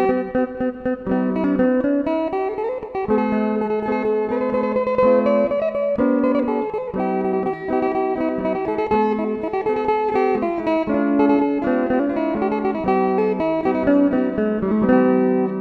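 A new phin, the Isan Thai plucked lute, being played: a quick plucked melody over a steady held drone note.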